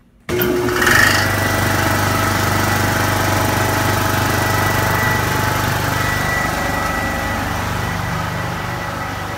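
Max-Air 90 high-pressure breathing-air compressor switched on: it starts abruptly with a brief surge about a second in, then runs steadily with a low hum and a few steady whining tones, growing slightly fainter near the end.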